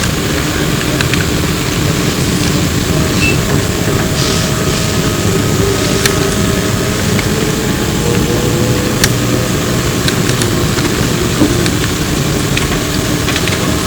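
Interior ride noise aboard a Flyer E902 electric trolleybus: a steady loud rumble of tyres and body with scattered rattles and clicks. A faint tone rises slightly about halfway through.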